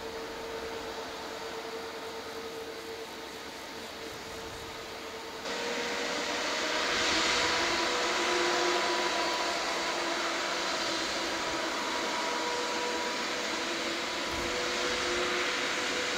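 Airbus A350's Rolls-Royce Trent XWB jet engines running at taxi power, a steady rushing whine with several held tones. The sound gets suddenly louder and brighter about five seconds in.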